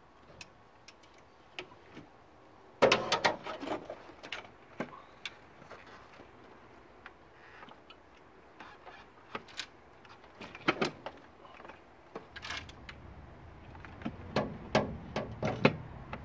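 Irregular knocks, clicks and clatter of a supercharger and its hoses being handled and fitted onto a V6 engine. The densest clatter comes about three seconds in, with more near the end.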